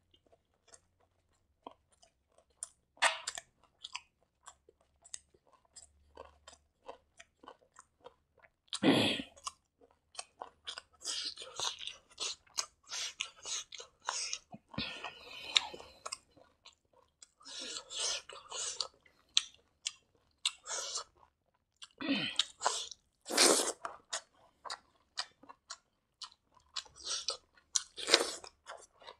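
A person chewing mouthfuls of fried rice close to the microphone: many small wet mouth clicks, with a few louder, longer bursts of chewing.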